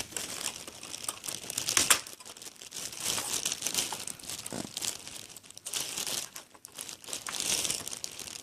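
Rustling, scraping and clicking of the Xbox 360's plastic casing being handled and pried at, with a sharp click about two seconds in.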